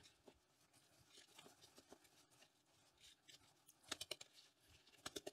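Faint scratching and crackling of hands pressing and brushing peat moss and perlite potting mix around a tuber in a plastic pot, with a short burst of louder crackles about four seconds in.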